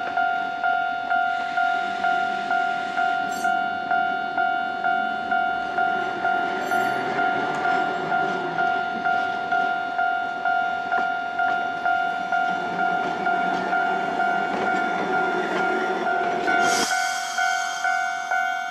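A railway level-crossing warning bell ringing steadily, about two strikes a second, over the rumble of a Hankai tram running on its rails. The rumble cuts off suddenly near the end while the bell keeps ringing.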